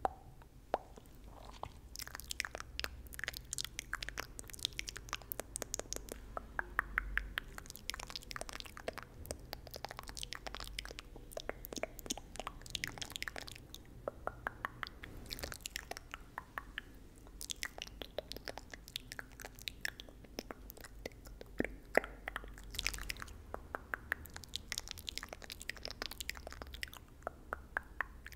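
ASMR mouth sounds close to the microphone: quick wet clicks and smacks of tongue and lips, several a second, in irregular runs with short pauses.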